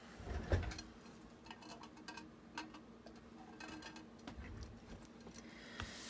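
Quiet handling sounds of cotton fabric and a flattened cardboard box being moved and smoothed by hand on a cutting mat: a soft thump about half a second in, then scattered light taps and rustles over a faint steady hum.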